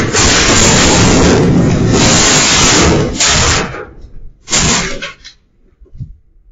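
Burning battery storage case: a loud, rushing hiss of fire that cuts off about three and a half seconds in, then flares again briefly about a second later before dying away.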